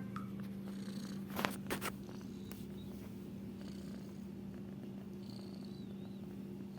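Domestic cat purring steadily with a rough, rattling rumble that sounds like a generator. A couple of brief clicks come about a second and a half in.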